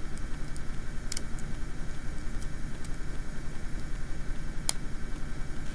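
Small plastic parts of a toy action figure clicking as they are lined up and pressed together: a couple of light clicks about a second in and a sharper one near the end. These sit over a steady low hum with a fast, even pulsing.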